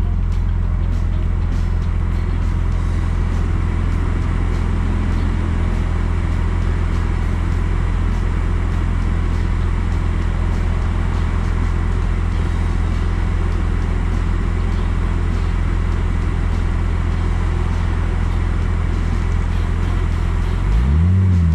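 Steady engine and road noise of a car driving, a constant low hum, with a rise and fall in engine pitch near the end.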